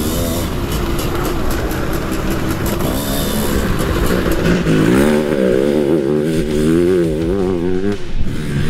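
Custom 700cc two-stroke dirt bike engine running on track, its pitch rising and falling as the throttle is rolled on and off, at no more than half throttle. It pulls steadily, 'like a steam train'.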